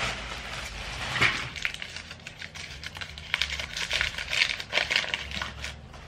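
Crumpled white paper crinkling and rustling as it is handled and unfolded, a run of irregular crackles that grows quieter near the end.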